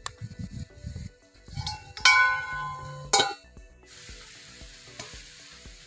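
A spoon stirs chicken pieces in a metal pan with soft knocks. About two seconds in, a metal lid clanks against the pan and rings for about a second, with another clank just after three seconds. Steady sizzling follows as the chicken fries in its own oil and butter.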